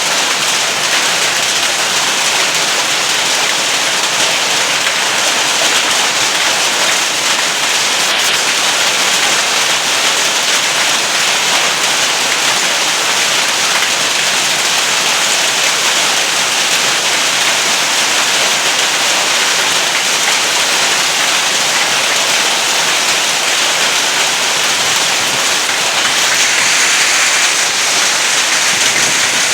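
A heavy downpour of rain and hailstones pelting down, a dense steady hiss that grows a little louder near the end.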